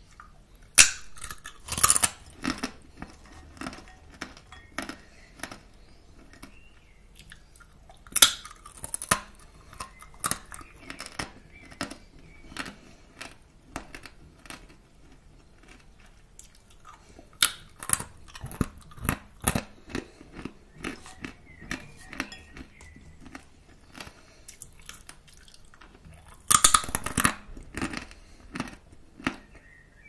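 Close-miked crunchy chewing of puffed crackers. A loud, crisp crunch of a fresh bite comes about every eight or nine seconds, and each is followed by a run of softer, regular chewing crunches.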